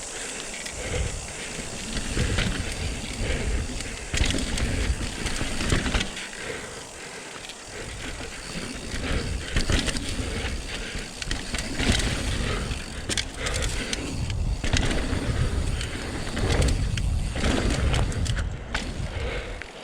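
Mountain bike riding fast down a dirt trail, heard from a microphone on the rear wheel: continuous tyre and ground noise with a heavy rumble, and frequent knocks and rattles from the bike over bumps.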